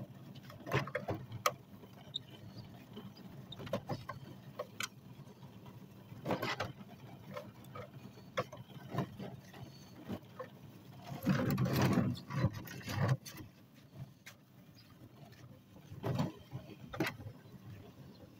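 Hoover Spin Sweeper L1400 push sweeper rolled over grass clippings, its gear-driven brushes clattering and rattling unevenly while clippings jam it. There is a longer, louder scrubbing stretch about two-thirds of the way through.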